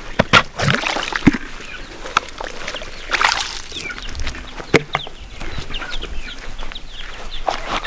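A flock of chickens calling, with many short high calls through the second half, over sharp knocks and clatters of plastic poultry waterers being handled and set down on the ground.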